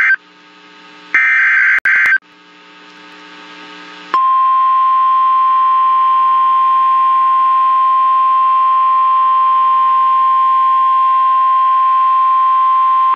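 Emergency Alert System activation for a severe thunderstorm warning: the buzzy screech of the SAME digital header bursts in the first two seconds, then, about four seconds in, a single steady 1050 Hz warning alarm tone held unbroken.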